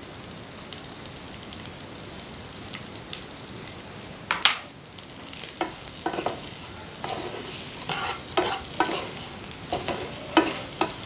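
Steamed rice-flour kozhukkattai balls frying gently in ghee in a nonstick pan, a faint steady sizzle. From about four seconds in, a wooden spatula stirs and tosses them around the pan in a run of short scrapes and knocks, the first the loudest.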